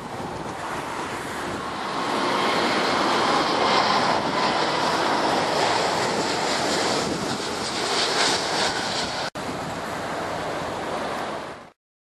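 Airbus A340-600's four Rolls-Royce Trent 500 jet engines on final approach, a rushing jet noise that grows louder about two seconds in as the airliner passes low, mixed with strong wind buffeting the microphone. It breaks off for an instant near the end and then stops abruptly.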